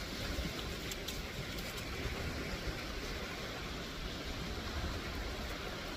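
Wind buffeting the microphone over the steady wash of surf breaking on a rocky shore, with a couple of faint clicks about a second in.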